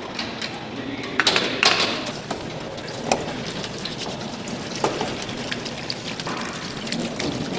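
Food-factory kitchen noise: a steady background hum with a series of sharp metallic clanks and knocks, the loudest two about a second in.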